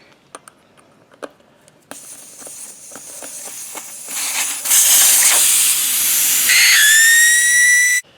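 Air hissing out of a golf cart tire's valve stem as the tire is let down, building to a loud rush over a few seconds, with a steady whistle in the last second and a half, then cutting off suddenly. A few light clicks come before the hiss.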